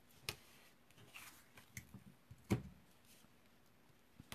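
Faint rustling and a few soft taps of paper and cardstock being handled and set in place on a handmade card, with a sharper tap about two and a half seconds in.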